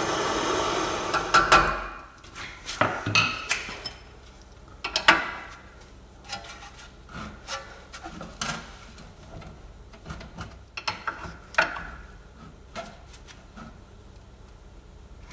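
A torch flame hissing as it heats a seized steering link nut, shut off about two seconds in. It is followed by scattered sharp knocks and clinks of tools against metal.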